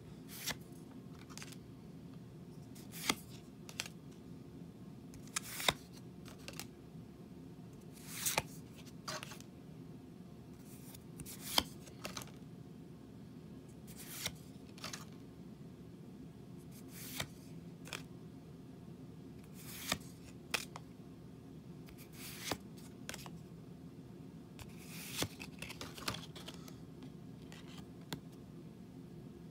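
Pokémon trading cards being flipped through by hand, one card slid off the stack and moved behind the others every couple of seconds, each giving a short sharp slide or flick. A steady low hum runs underneath.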